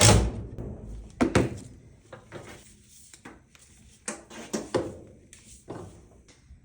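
A power tool stops right at the start, then a scattered series of separate knocks and clicks as tools and objects are handled and set down on a shop bench.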